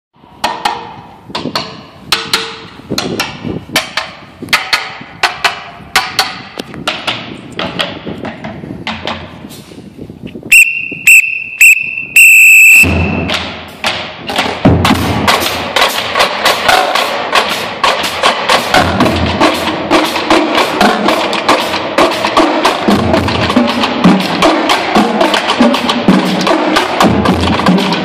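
Marching drumline playing: sparse single drum and stick strikes at first, then four short, loud high-pitched tones about halfway through, after which the full line of snare drums, tenor drums and bass drums plays a fast, dense rhythm.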